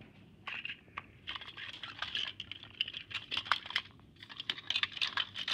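Plastic TrackMaster toy train coaches being handled and shifted about, giving quick, irregular light clicks and rattles of plastic against plastic, with a short pause about four seconds in.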